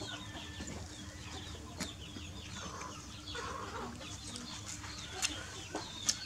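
Many short bird calls, chirps and quick pitch glides overlapping, with a few sharp clicks.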